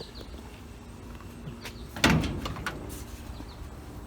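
Car door of a 1936 Chevrolet coupe clunking once about halfway through, followed by a few lighter knocks.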